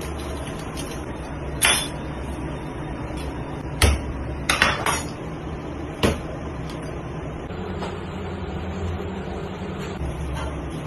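Butchering knife and slabs of tuna knocking against the work table while a whole tuna is cut up: a few sharp clanks, one about two seconds in, a quick cluster around four to five seconds in and one more about six seconds in, over a steady low hum.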